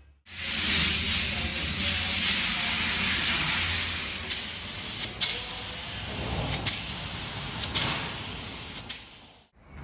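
Steady, loud hissing spray, like compressed air or gas escaping under pressure, with a few sharp clicks through it; it starts and cuts off abruptly.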